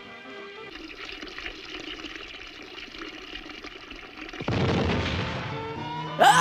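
Cartoon sound effects: a low steady rushing noise, then a much louder gush of water from about four and a half seconds in as a bathtub spills over, ending in a sudden sharp hit with a quick upward swoop right at the end.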